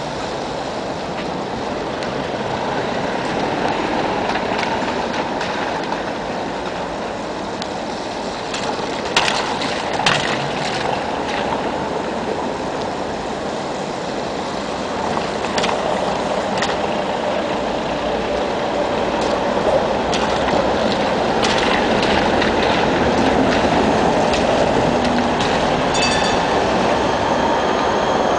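Street traffic on a wet road: car tyres hissing through water on cobbles and tram rails, with a few sharp knocks about a third of the way in. Near the end an electric tram approaches along the rails and grows louder, with thin high wheel-on-rail tones.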